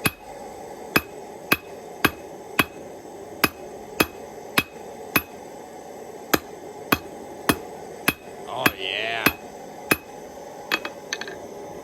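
Hand hammer striking hot rebar on a steel anvil, each blow ringing, at roughly two strikes a second in a steady forging rhythm with a couple of short pauses.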